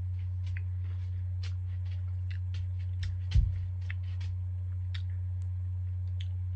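Chewing a crunchy cream-filled cookie: scattered small crunches and mouth clicks over a steady low hum, with one dull thump about three and a half seconds in.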